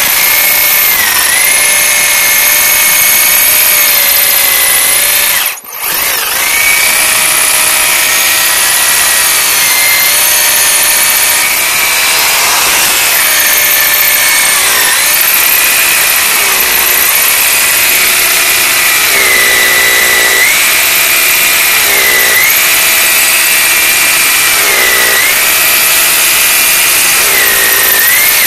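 An electric drill bores into a concrete wall footing. It runs continuously, with a brief stop about five and a half seconds in, and its motor pitch dips again and again as the bit loads up in the concrete.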